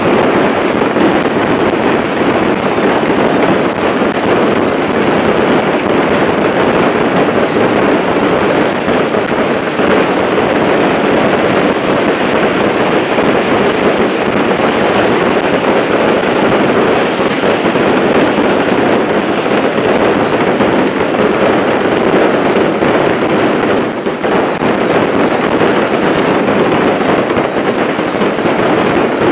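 Firecrackers and fireworks going off in a dense, unbroken crackle that never lets up, with no gaps between the reports.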